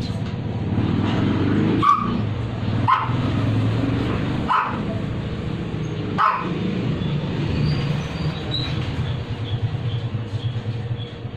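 A dog barking four times, a second or more apart, over a steady low rumble.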